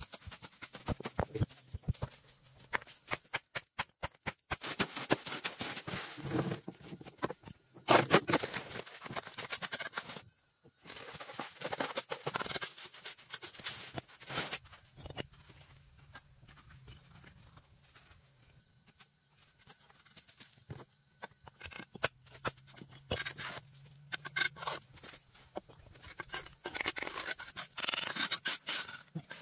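Mason's trowels working wet concrete and mortar on brick: bursts of gritty scraping as the mix is spread, broken by many sharp taps of steel trowels on bricks.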